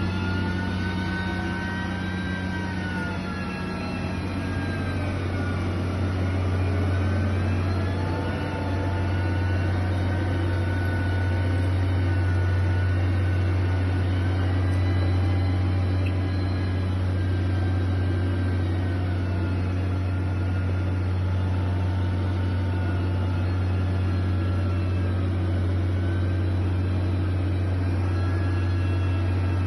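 Heavy construction machine's engine running continuously, with a steady low hum and higher tones that slowly rise and fall in pitch as the revs change.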